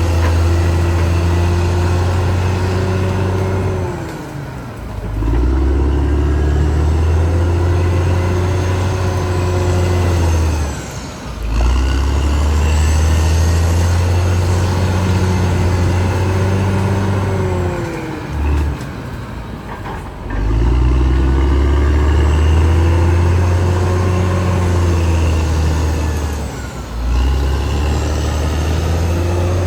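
Caterpillar D6R XL bulldozer's diesel engine running hard. Its note sags and drops away about every seven seconds, four times in all, and then picks back up.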